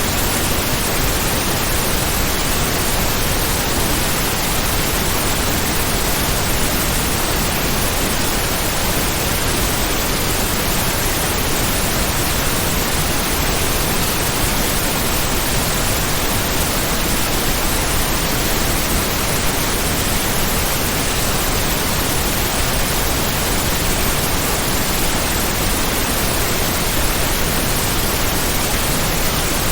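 Heavy rain as a steady, unchanging hiss, spread evenly from low to high pitches, with no separate drops, gusts or thunder standing out.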